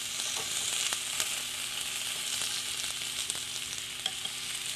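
Vegetables sizzling on the grill plate of a Starfrit Rock smokeless electric indoor grill: a steady hiss, with a few light clicks of metal tongs turning the asparagus.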